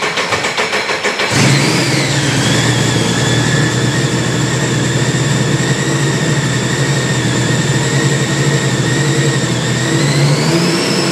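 Supercharged Sea-Doo RXP-X 4-TEC engine at its first start on a new standalone ECU with an untuned fuel map. It runs unevenly with a pulsing note for about a second, then settles into a steady, very high idle with a high whine over the engine sound. The whine rises in pitch briefly near the end.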